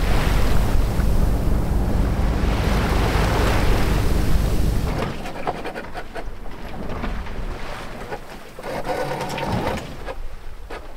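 Wind buffeting the microphone and water rushing past a sailboat under sail. About five seconds in it drops to a quieter wash of water with scattered small knocks.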